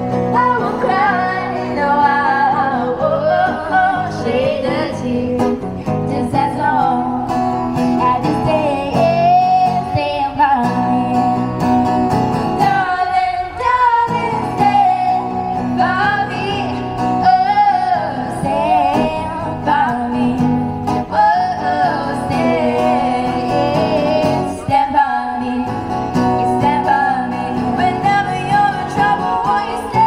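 Live music: a singer performing a song, accompanied by acoustic guitar.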